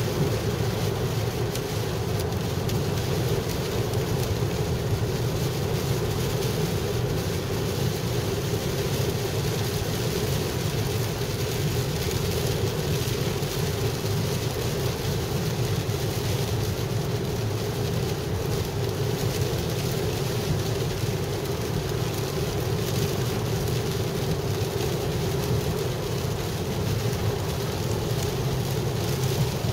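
Heavy rain pelting a car's roof and windshield, heard from inside the cabin, over steady road and tyre noise from driving at highway speed on a soaked road.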